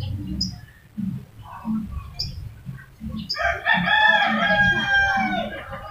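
A rooster crowing once, a long call starting about halfway through, its pitch held and then dropping at the end.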